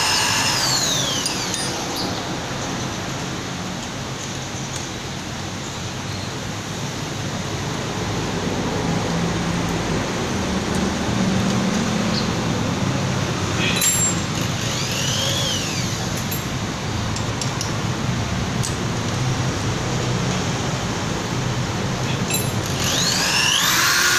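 Electric hand drill winding down right at the start, run up briefly and let spin down about midway, then started up again near the end, its motor whine rising and falling each time. In between, a few light metallic clicks as the drill chuck is handled.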